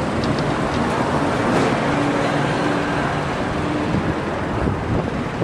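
Street traffic noise with wind rushing over the microphone; a faint steady hum, likely a passing vehicle's engine, comes in about two seconds in and fades out about two seconds later.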